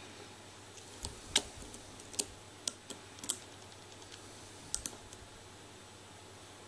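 Metal lock pick clicking and tapping against the pin stack of a challenge lock during single-pin picking: a scattering of sharp, irregular clicks that stop about five seconds in.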